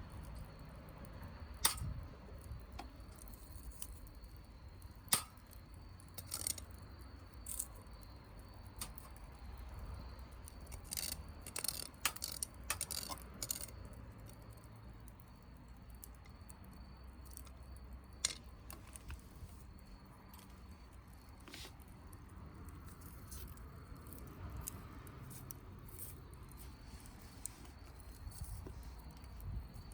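Campfire wood crackling: sparse sharp pops and snaps, with a quick run of them about eleven to thirteen seconds in, over a faint steady high-pitched tone.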